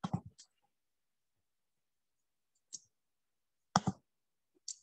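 A few short, sharp clicks with dead silence between them, the loudest nearly four seconds in.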